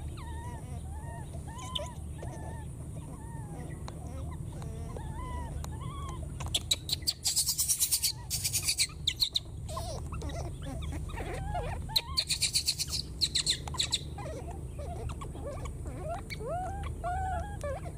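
Baby macaque making many short, high, rising-and-falling coo calls, one after another. Two louder spells of rapid crackling noise come about seven and twelve seconds in.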